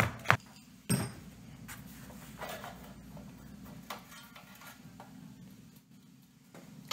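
Sheet-metal top cover of an audio interface being worked loose and lifted off its chassis. Two sharp clicks come in the first second, then faint scraping and handling of the metal lid.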